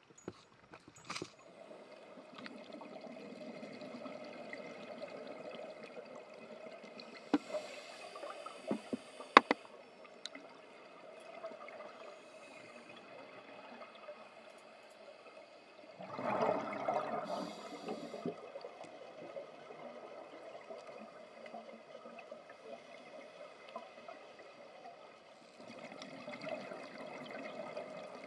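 Underwater sound on a scuba dive: scuba divers' exhaled bubbles gurgling and rushing from the regulator exhaust, loudest in a two-second rush just past halfway and swelling again near the end. A few sharp clicks or knocks come in the first ten seconds.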